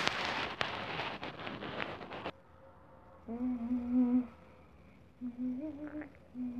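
A person humming a few held notes without words, after about two seconds of rustling, crackling noise at the start.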